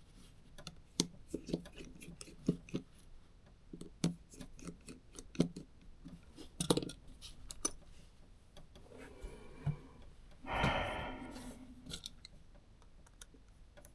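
Small clicks and taps of a compact camera lens and small tools being handled while the lens is opened up again, with a brief louder rustle about three-quarters of the way through.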